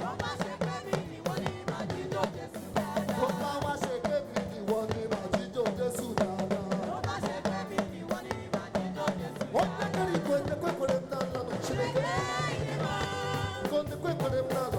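Live band playing upbeat African gospel praise music with a fast, busy drum beat, with some singing near the end.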